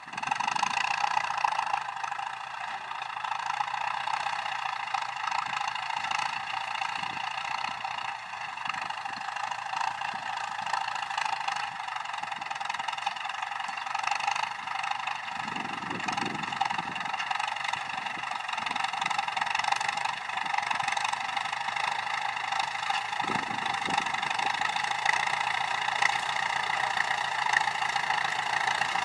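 Ford 6610 tractor's four-cylinder diesel engine running steadily.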